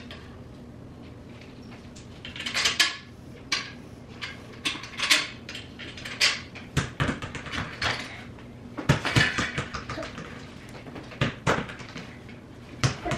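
Metal tubes and fittings of a basketball hoop's pole being handled and fitted together during assembly: irregular clinks, clanks and rattles with a few sharp knocks, over a faint steady hum.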